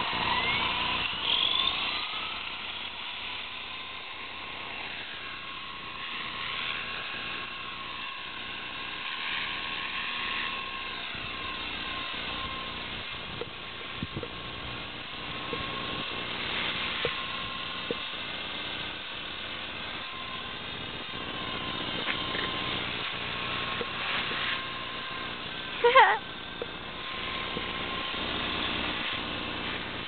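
Small RC helicopter's motor and rotor whine, steady with pitch that rises and falls as it is flown. A brief louder sound cuts in about 26 seconds in.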